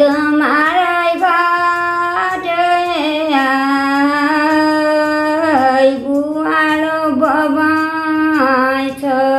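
An elderly woman singing a Nepali folk love song alone, without accompaniment, in long held notes. Each phrase falls away at its end.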